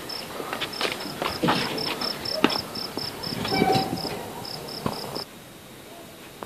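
A cricket chirping steadily, about four chirps a second, with scattered clicks and rustles over it. The outdoor sound cuts off suddenly about five seconds in, leaving a faint hiss.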